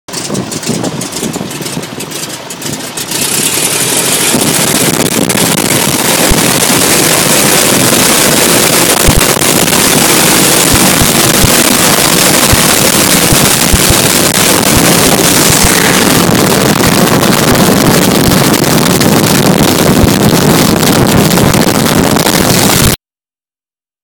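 Open-cockpit biplane's radial engine and propeller, heard from the cockpit through heavy wind rush. The engine opens up about three seconds in and then holds a loud, steady drone, ending abruptly near the end.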